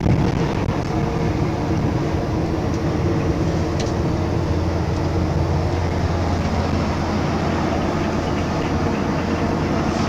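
Tour coach's engine and road noise heard inside the passenger cabin: a steady low drone.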